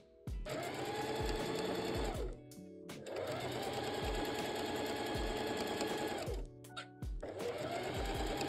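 Domestic electric sewing machine stitching a seam through knit fabric in three runs, stopping briefly twice: about two seconds, then about three seconds, then starting again near the end.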